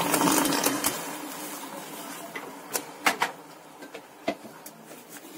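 Water pouring into a steel pot of sugar, tailing off about a second in, then a silicone spatula stirring and scraping the wet sugar against the pot, with a few sharp taps on the pot around the middle.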